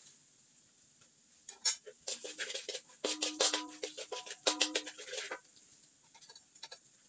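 Metal spatula scraping and clinking against a metal wok while stir-frying minced garlic and chili: a run of quick scrapes and knocks starting about one and a half seconds in and stopping a little after five seconds, with a ringing tone under the loudest part.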